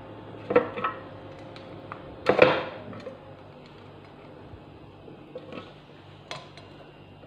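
Sliced onion, tomato and chilli tipped off a plate into a clear plastic jar: a couple of light knocks, then a louder clatter of plate and jar about two seconds in, then a few faint taps.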